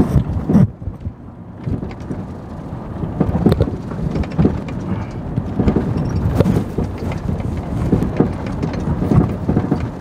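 Toyota 4Runner rolling over a rough dirt forest road, heard from inside the cabin: an uneven low rumble broken by irregular knocks and jolts.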